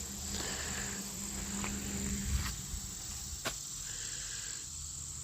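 Insects chirring in a steady high-pitched chorus, with a low hum that stops about halfway and a few sharp clicks.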